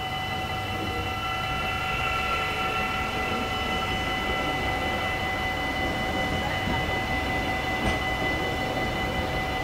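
Level-crossing warning bells ringing steadily as a two-unit Stadler GTW-E electric train passes over the crossing, its wheels rumbling on the rails. One sharp click about eight seconds in.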